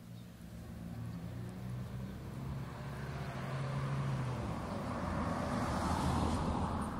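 A road vehicle passing by: a rush of engine and tyre noise that swells steadily, is loudest near the end, then begins to fade.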